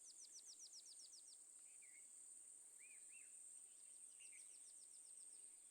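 Faint rural ambience: insects keep up a steady high-pitched drone, while a bird gives two quick runs of short falling chirps, near the start and again about four seconds in, with a few single arched chirps between them.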